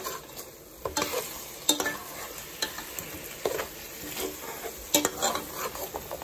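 Metal spoon scraping and knocking against a metal pot while stirring chicken and potato curry, a stroke about once a second, over a soft sizzle of the curry frying in its own juices.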